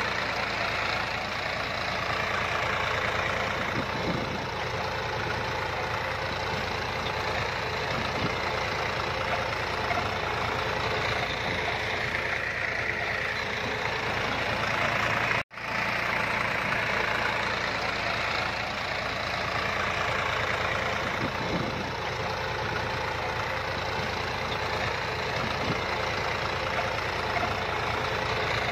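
HMT 5911 tractor's diesel engine running steadily while the tractor pulls a leveller across the field. The sound cuts out for an instant about halfway through.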